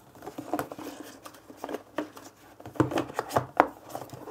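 Phone packaging being handled: scattered light taps and rustles of a cardboard box and plastic wrapping as the phone is lifted out.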